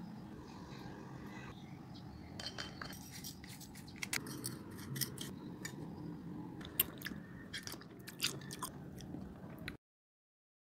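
Sharp clicks and crisp crunches as slices of raw green mango are handled in a glass bowl, over a steady low hum; the sound cuts off abruptly near the end.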